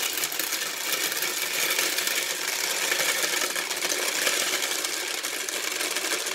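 Peanut M&Ms poured from a plastic jar into the clear plastic hopper of a bulk candy vending machine: a steady, dense rattle of hard-shelled candies clattering onto the plastic and onto each other.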